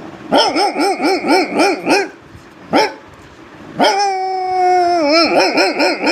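A man's voice imitating a dog: a quick run of yapping barks at about four a second, a single yelp, then a long held howl that drops in pitch near its end and breaks back into yaps.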